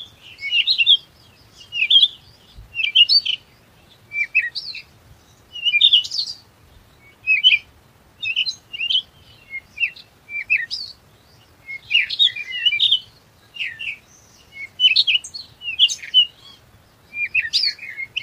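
Songbirds chirping in short, high twittering phrases, one about every second, with nothing else beneath them.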